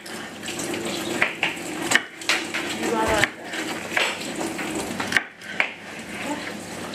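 Kitchen knife chopping a green bell pepper into chunks on a plastic chopping board: irregular sharp knocks of the blade striking the board, about one or two a second.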